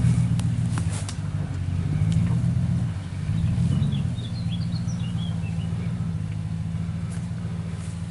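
The 5.7-litre Hemi V8 of a lifted Ram 1500 running, its pitch rising and falling a few times before it settles to a steadier, slightly quieter drone. Birds chirp briefly about halfway through.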